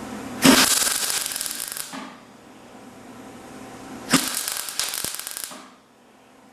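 A power cutting tool cutting sheet steel for a patch panel in two bursts of about a second and a half each, a harsh rapid crackling chatter.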